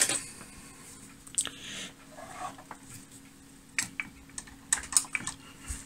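Scattered light clicks and taps of a small hand tool being handled at an oscilloscope's front panel, several coming close together near the end.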